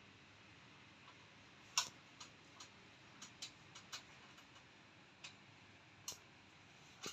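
Faint steady hiss with a string of irregular sharp clicks and ticks, about a dozen, starting about two seconds in.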